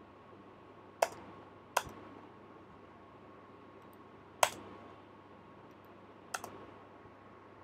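Four sharp, separate computer keyboard keystrokes spaced a second or more apart, the last a quick double tap, as code is copied and pasted.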